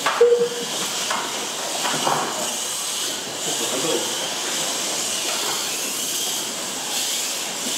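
Several Mini-Z RC cars racing on a small track: a steady high hiss and whine from their small electric motors and tyres. A short tone sounds just after the start.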